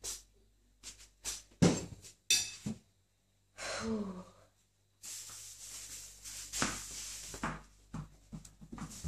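Knocks, thumps and rustling handling noise as someone walks across a tiled floor holding a phone camera, with a loud thump a little under two seconds in and a brief low murmur of a voice about four seconds in.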